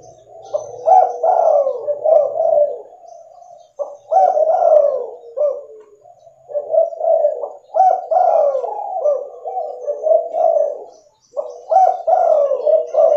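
Spotted dove of a red leopard colour mutation cooing: repeated phrases of short falling notes, in several bouts with brief pauses between them.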